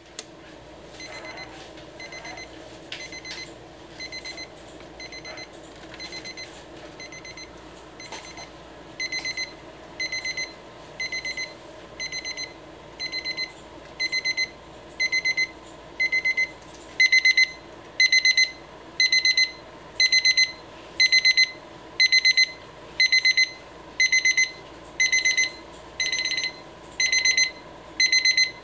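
RHYTHM desk alarm clock's electronic alarm beeping: short trilling beeps about once a second, stepping up in loudness twice as the alarm escalates.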